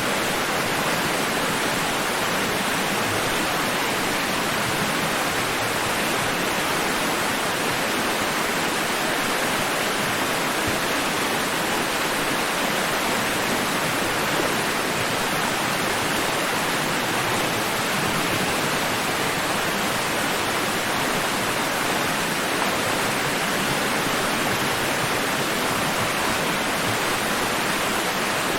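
Steady, even rush of water, with no swells or breaks.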